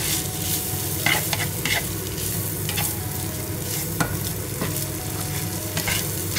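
Diced ham and sliced mushrooms sizzling in melted soy butter in a non-stick frying pan while a plastic spatula stirs them. There is a steady frying hiss, with irregular scrapes and taps of the spatula against the pan about once a second.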